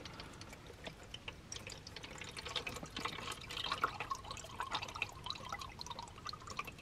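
Used engine oil mixed with engine flush draining from an oil pan down a hose into a plastic container, trickling with many small drips.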